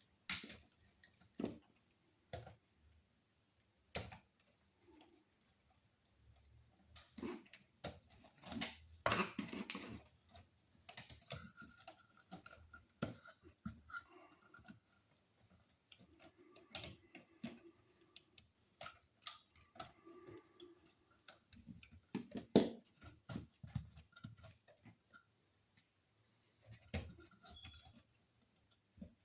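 Hand tools and wires being handled at a wall outlet box during a receptacle replacement: irregular clicks, taps and scrapes, with a longer scrape about nine seconds in and a sharp knock about twenty-two seconds in.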